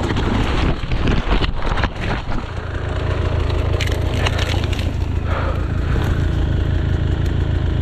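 A dirt bike and its rider crash down a steep slope through brush: several crunching knocks and the cracking of twigs and branches in the first couple of seconds. After that the bike's engine keeps idling steadily as it lies on its side.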